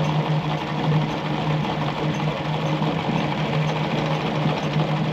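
Singer 319K sewing machine running steadily, its motor humming as it sews a short straight stitch through fabric.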